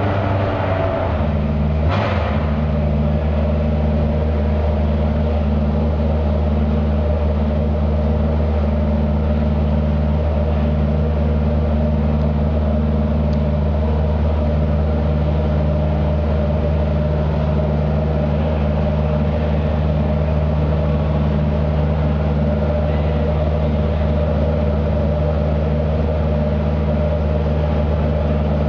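Subaru Impreza WRC rally car's turbocharged flat-four engine idling steadily, with a slight change in pitch about a second in. A single short knock about two seconds in.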